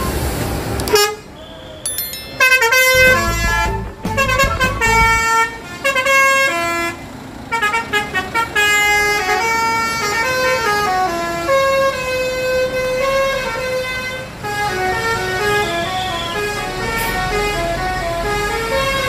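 Intercity bus's telolet horn, a multi-tone air horn, playing a quick melody of stepping notes. A low engine rumble sits under it near the start.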